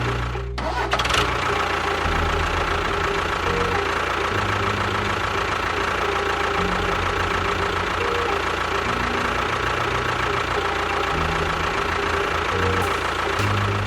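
Steady, continuous sound of an engine running at idle, with a low knocking pulse that shifts in pattern every second or two.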